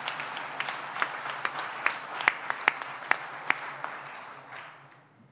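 Audience applauding, with a few loud, sharp claps close by between about two and three and a half seconds in. The applause fades away near the end.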